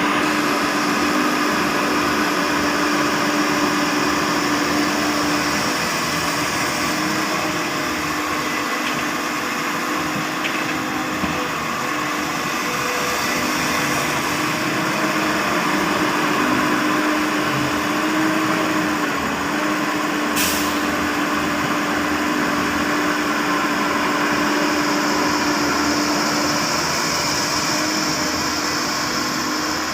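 Heavy earthmoving machinery running steadily: a diesel excavator engine with a held, even tone, and one short sharp click about twenty seconds in.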